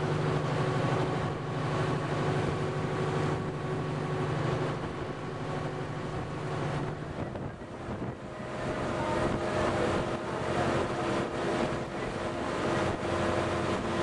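A boat's engine running under way, with wind buffeting the microphone and water rushing past. The engine note changes about halfway through.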